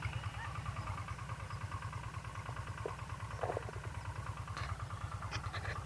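A small engine running steadily, with a fast, even low beat and a few faint ticks over it.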